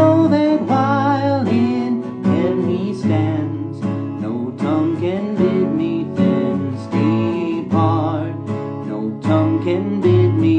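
Acoustic guitar strummed steadily through an instrumental break between verses of a hymn, with a man's voice holding the last sung note for about the first second.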